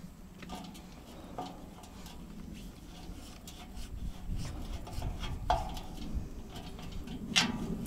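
Scattered light metallic clinks and knocks of hand work on a truck's wheel hub and caps, over a low steady hum.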